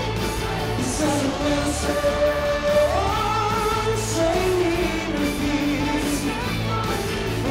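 Live pop-rock music: a man singing a melody over acoustic guitar and a band, with a steady drum beat and cymbal hits about once a second.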